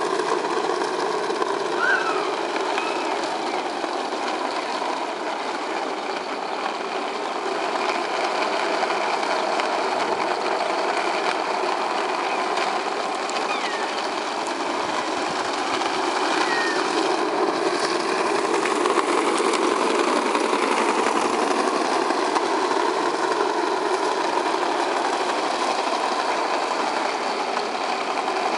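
Steady whirring and rolling noise from an electric skateboard's motor and the small plastic wheels of two towed Plasma Cars on the hard court surface, with a few faint short squeaks.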